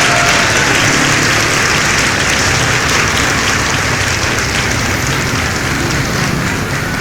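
Crowd applauding steadily, a dense, even clapping noise.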